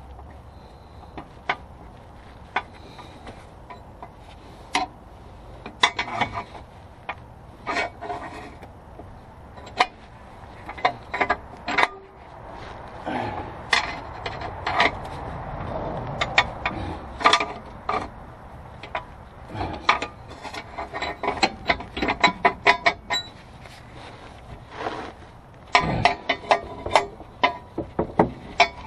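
Hand tools and metal drivetrain parts clinking, tapping and scraping as work goes on overhead under a car, in irregular sharp clicks and knocks. A longer stretch of rubbing and scraping comes about halfway through, and a quick run of clicks near the end.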